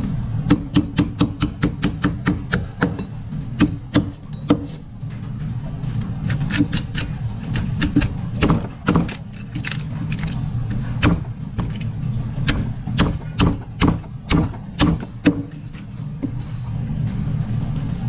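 Heavy cleaver chopping through a sevenband grouper's head and bones on a plastic cutting board, in quick runs of sharp chops, often several a second, with pauses between runs. A steady low motor hum runs underneath.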